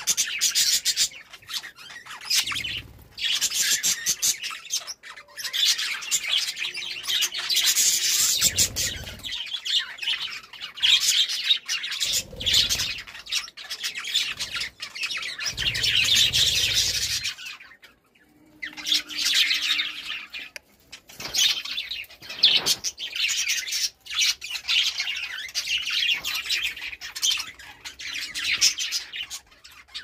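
A group of budgerigars chattering and warbling: rapid high chirps in long bursts with short pauses, the longest pause about eighteen seconds in. A few short, low rumbles sound underneath.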